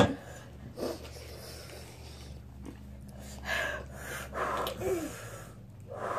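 People huffing and blowing air out hard through pursed lips, a few breathy puffs, the strongest two about three and a half and four and a half seconds in, as they fight the burn of extremely hot chicken wings. A steady low hum runs beneath and stops about five seconds in.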